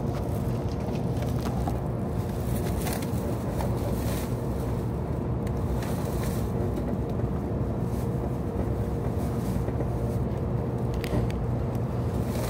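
Cabin running noise of an 800 series Kyushu Shinkansen train under way: a steady low rumble with a constant hum and a few faint clicks.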